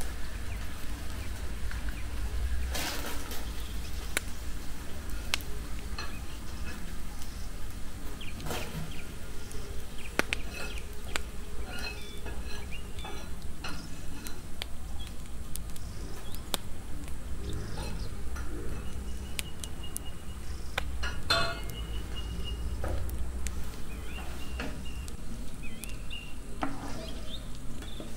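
Onion being chopped with a knife on a wooden block in irregular knocks, with a cluster of strikes about two-thirds of the way through, over meat and onion frying in a pan on a camping gas burner. A wooden spoon stirs the pan near the end.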